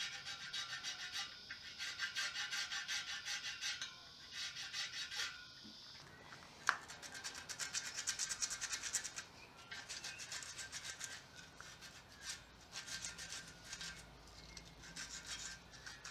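A hand file rasping back and forth in quick repeated strokes over a cured QuikSteel epoxy-putty patch in an aluminium dirtbike rim, taking off the burrs. A sharp click comes about six and a half seconds in. After that, sandpaper rubs over the patch in irregular strokes to smooth it.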